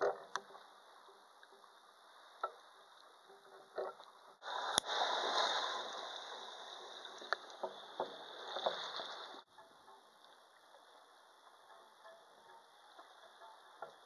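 Underwater sound picked up by a waterproof pocket camera in the sea: scattered sharp clicks and knocks, with a louder stretch of rushing water noise from about four to nine seconds in that cuts off abruptly.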